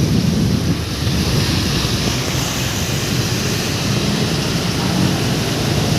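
A vehicle engine running steadily, with wind buffeting the microphone and a constant hiss of rain and water as it travels along a flooded road.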